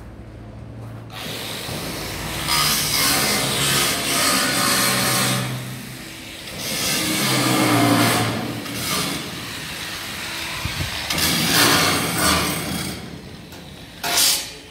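A handheld power tool working in several bursts of a few seconds each, with a short final burst near the end.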